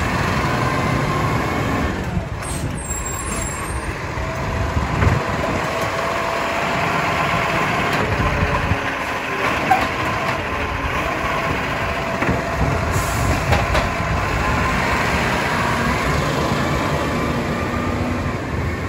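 Acco side-loader garbage truck's diesel engine running while its hydraulic arm lifts a wheelie bin, tips it over the hopper and lowers it again, with a few knocks.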